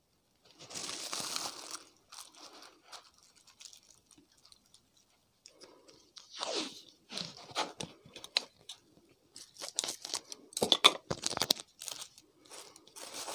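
Thin plastic bag crinkling as it is handled, then black duct tape being pulled off the roll and torn in short rasping strips, thickest and loudest in the last few seconds.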